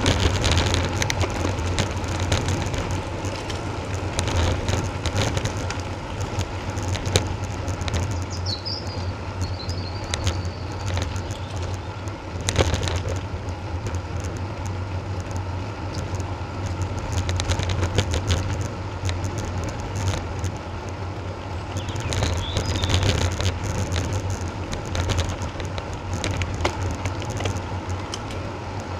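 Road bike rolling along a lane at cycling speed, heard from a bike-mounted action camera: a steady wind rumble on the microphone over tyre noise from the road surface, with many small rattling clicks. A few short high chirps come through about eight seconds in and again past twenty seconds.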